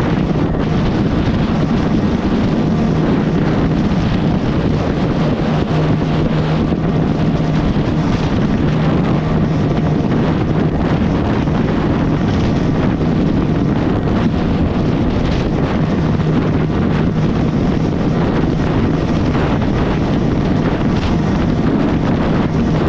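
Bajaj Pulsar's single-cylinder engine held flat out near redline at top speed, a steady drone that does not rise or fall, with heavy wind noise buffeting the microphone.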